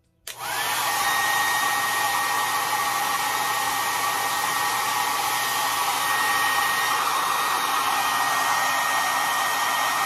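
Brightup ionic hair dryer switched on at its third setting a moment in: a high motor whine rises quickly to a steady pitch over the rush of air, and it runs steadily, loud.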